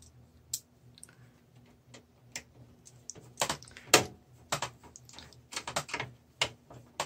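Scattered clicks and knocks of hands handling cables against a steel PC case. They are sparse at first and turn into a busy run of louder clicks about three and a half seconds in.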